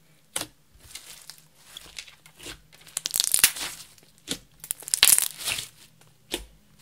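Hands kneading and squeezing a blue glitter clear slime, giving an uneven run of short, sticky crackles and pops. They are loudest in two stretches, about three and about five seconds in.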